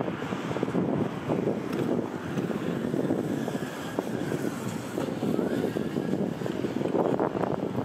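Steady outdoor city noise with a rumble of passing traffic.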